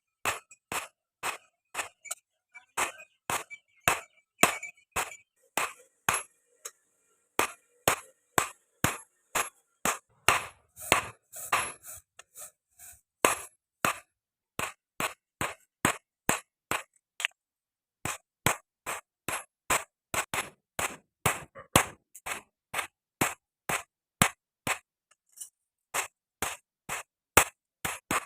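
Hand hammer striking steel on an anvil in a steady rhythm of about two to three blows a second, each a sharp ringing clink, with a short pause a little after halfway.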